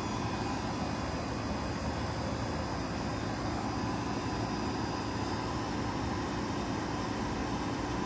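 A 2004 Goodman PHK036 3-ton packaged heat pump running steadily in cooling mode: an even hum from the compressor and fans, with a faint steady whine.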